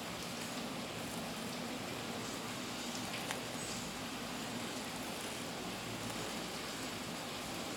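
Steady background hiss, with a single faint click about three seconds in.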